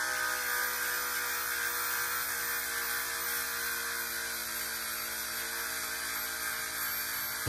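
Corded power sander with a sanding disc running against a fiberglass boat hull, grinding down the gelcoat: a steady motor whine over the hiss of the disc on the surface. The pitch dips slightly in the first second, then holds steady.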